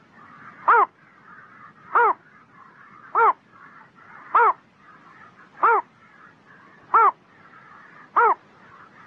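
A heron calling: a short, harsh, downward-arching call repeated at an even pace, about once every second and a quarter, seven times.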